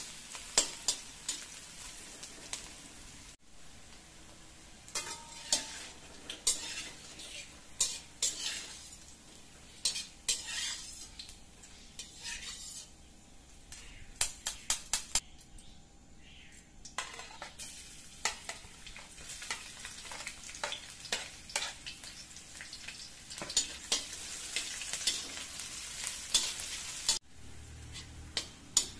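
Tempeh pieces sizzling in hot oil in a stainless steel wok, with a slotted metal spatula scraping and clinking against the pan many times. Near the end, thinly sliced shallots and garlic fry in the oil.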